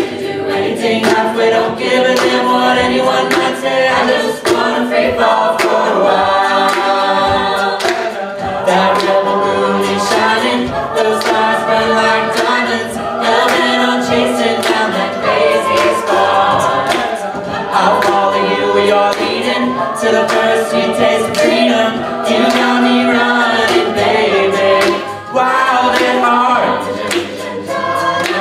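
Mixed-voice a cappella group singing in harmony, a male lead voice over the backing vocals, with vocal percussion keeping a steady beat.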